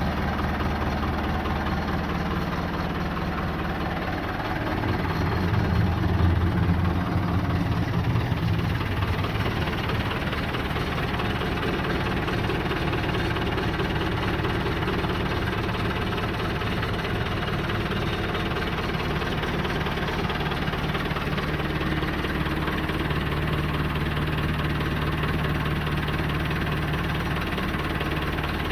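Ford backhoe's recently rebuilt engine running steadily, running well. It gets louder for a few seconds about five seconds in, then settles back to a steady run.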